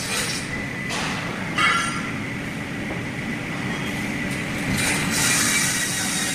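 CNC block and board cutting saw running: steady machine noise with a faint high whine, and a short loud knock about a second and a half in.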